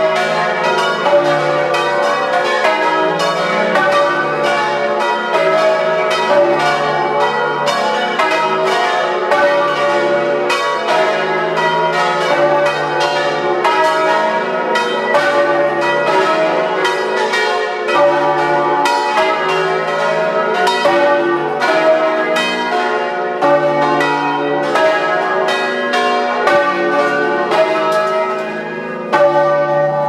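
Several hand-rung church bells swinging in their wooden frame, ringing a loud, continuous peal of overlapping strokes, heard close up in the bell chamber.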